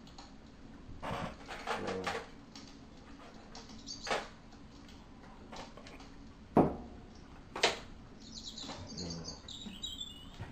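Coloured pencil scratching on drawing paper in short strokes, then a few sharp knocks from handling the pencil and drawing board, the loudest about six and a half seconds in. A few faint high chirps near the end.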